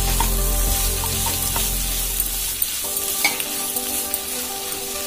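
Sliced onions, garlic and chopped tomatoes sizzling as they fry in butter in a kadai, stirred and scraped with a wooden spatula that knocks lightly against the pan a few times. A low rumble stops about halfway through.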